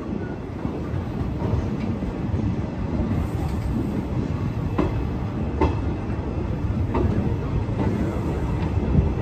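Passenger train rolling slowly through a station: a steady running rumble of the coach, with a few wheel clacks over rail joints in the middle.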